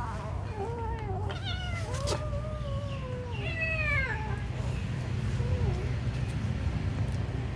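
Kittens meowing: a string of rising-and-falling meows through the first four seconds, then one faint meow about halfway through. A low steady rumble runs underneath.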